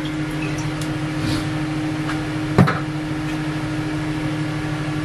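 A steady hum from a small motor, with a single sharp knock about two and a half seconds in.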